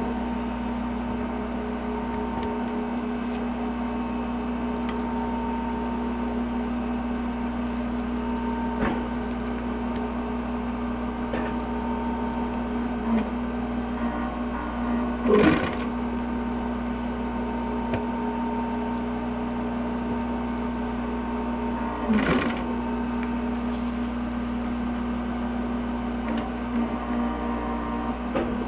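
Industrial sewing machine's clutch motor humming steadily while running, with scattered light clicks and two short louder bursts about halfway and about three-quarters through, as the machine is run briefly.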